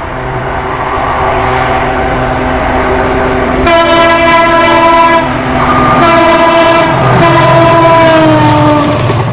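WDG4 diesel-electric locomotive hauling a passenger train past at speed, its engine running. Its multi-tone air horn sounds about four seconds in: a short blast and then a longer one whose pitch falls near the end as the locomotive passes.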